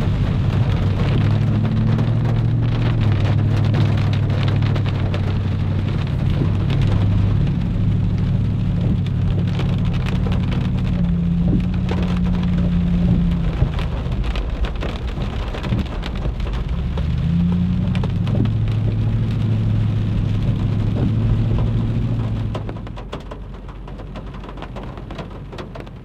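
Rain falling on a Toyota truck's windshield and roof, heard inside the cab, over a low engine drone that shifts pitch a couple of times as the truck drives. About 22 seconds in the engine drone drops away, leaving quieter rain.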